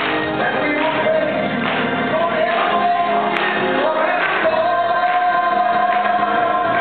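Gospel praise team singing together into microphones over a steady beat, holding one long note through the second half.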